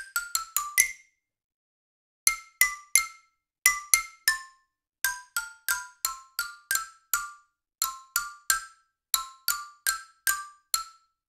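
Sampled soprano xylophone from the Abacus library playing short melodic runs of single bright, quickly decaying mallet notes, in groups of three to six with brief pauses between them.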